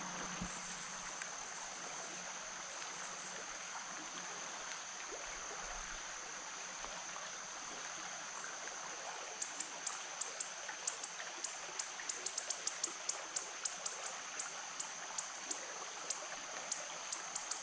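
Small creek running, a steady trickling rush of water, under a steady high-pitched tone. From about halfway through, a run of quick, sharp high clicks comes in, several a second.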